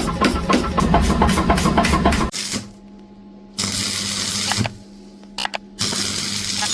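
About two seconds of rapid, evenly spaced pounding, roughly six or seven strokes a second, then a steady electric hum broken by two bursts of welding hiss and crackle, each about a second long.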